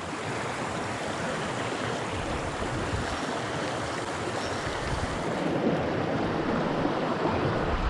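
Shallow stream rushing over stones and white water spilling into a pool: a steady wash of water noise.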